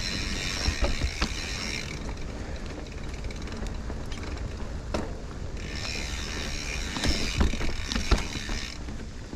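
Mountain bike rear freewheel hub buzzing as the bike coasts, for about the first two seconds and again from about halfway through to near the end. Under it are a steady low rumble of the ride and scattered knocks from the bike over rough ground.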